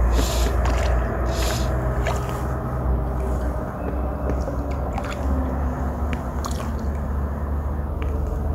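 Fly line being stripped in by hand, with a few quick hissing swishes in the first second or so. Under it is a steady low rumble with crackling and rustling from handling on the body-worn camera's microphone.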